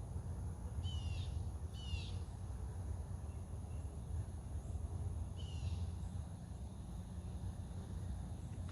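A small bird gives three short, high chirps about a second apart, then again after a pause, over a steady low background hum.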